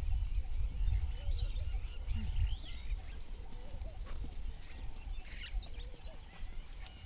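Wind buffeting the microphone, strongest in the first three seconds and easing after that, with scattered short bird chirps and calls over it.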